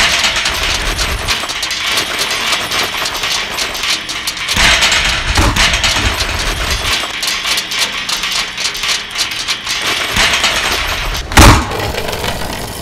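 Foley of a heavy metal tool chest tumbling down a wooden staircase: continuous clattering and rumbling bangs, ending in a loud crash near the end.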